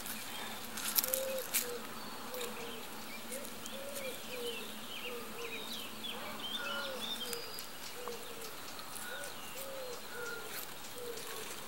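Pigeons cooing over and over in short arched phrases, with small birds chirping higher up. About a second in there are two sharp snaps as a young hop stem is split by hand.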